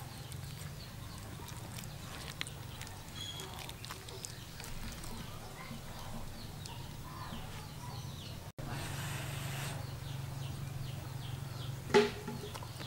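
Birds chirping over a low steady hum, with light clinks of a metal spoon on a plate and one sharp, louder knock near the end.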